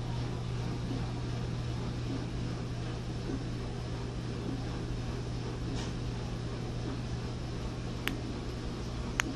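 Steady low hum of room noise, like a running fan or appliance, with two short sharp clicks near the end.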